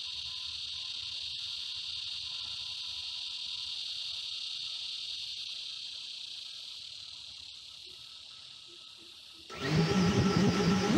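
Steady high buzzing of insects. About nine and a half seconds in, the Five33 Switchback Pro quadcopter's motors start spinning its props at idle with a sudden loud whine, heard close through the drone's own onboard camera microphone.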